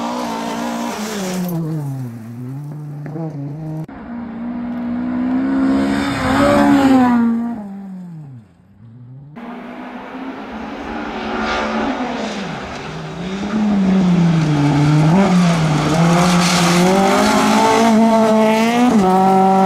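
Volvo 240 rally car's engine at full race pace, heard from inside the car. The note climbs and falls repeatedly as the driver accelerates, shifts and brakes into corners. It is loudest about seven seconds in, then dips sharply.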